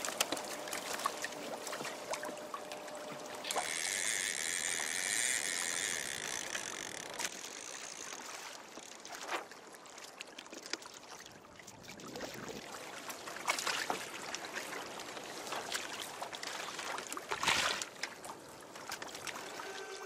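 Seawater sloshing and splashing against the hull of a Hobie Adventure Island sailing kayak under way, with a few sharper slaps of water. A high whine sounds for about three seconds, starting about four seconds in.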